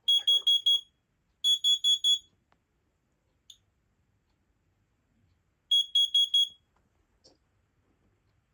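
Smoke/carbon monoxide alarms sounding in groups of four sharp, high-pitched beeps: two groups close together at the start and a third about six seconds in. Four beeps per group is the carbon monoxide alarm pattern, set off by a test of a Kidde KN-COB-IC combination smoke/CO alarm.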